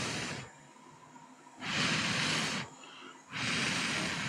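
Three bursts of rushing air, each about a second long with short gaps between them, blown over a circuit board during soldering rework.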